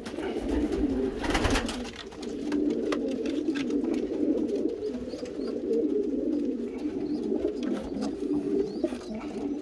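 Racing pigeon cooing continuously in low, rolling coos as it guards its squab in the nest box against a reaching hand. A short rustling scuff comes about a second in.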